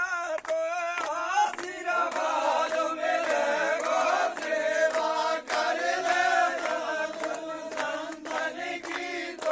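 A group of men singing a devotional chant together, with steady rhythmic hand clapping.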